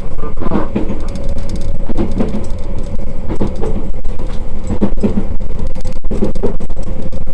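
Iyo Railway train running: a loud, continuous low rumble with a steady whine throughout.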